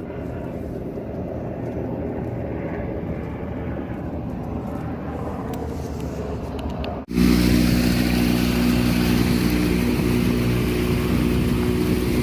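An engine running steadily, a low rumble at first; after a sudden cut about seven seconds in it becomes a louder, even drone with several steady tones.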